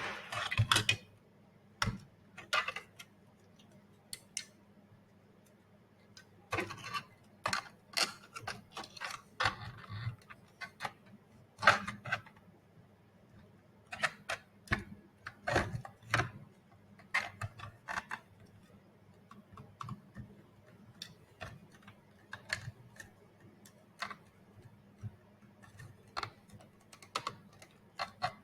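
Irregular clicks and knocks of hard robot head parts being handled and fitted together, with short pauses between bursts of handling.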